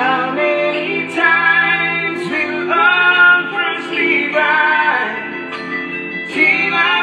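Slow-rock song: a solo singer's voice carrying sung phrases, some held for about a second, over instrumental backing.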